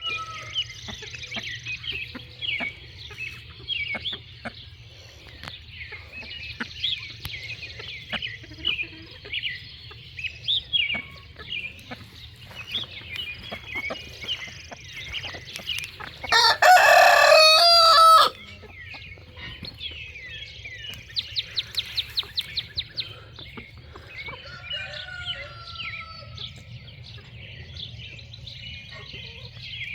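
A rooster crows once, loudly, for about two seconds, roughly halfway through. Birds chirp continually around it, and a quick run of short notes follows a few seconds after the crow.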